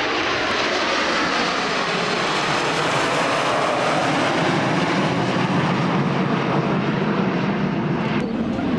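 Kawasaki T-4 jet trainers flying over in a four-ship formation, their twin turbofan engines making loud, steady jet noise whose pitch falls as they pass. The sound changes abruptly near the end.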